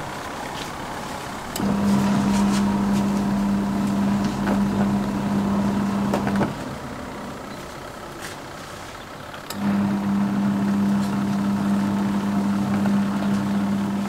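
Small portable twin-tub washing machine's wash motor humming steadily as it churns the laundry and water. It starts about two seconds in, stops for about three seconds midway, then runs again, the on-off pattern of the wash cycle's agitation.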